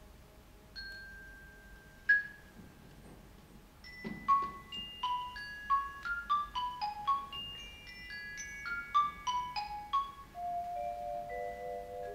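Mallet percussion played in concert: a few sparse high notes that ring on, then from about four seconds in a quick run of struck notes, around three a second, each left to sound. Near the end several lower notes enter and hold together.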